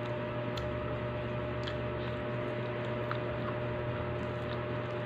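Quiet eating by hand: soft, faint clicks and squishes of fingers working rice and fish on a plate, and chewing, over a steady background hum.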